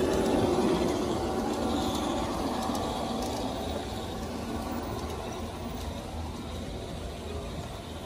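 A large-scale model train, an Amtrak locomotive, running along its garden track. The sound fades steadily as the train moves away.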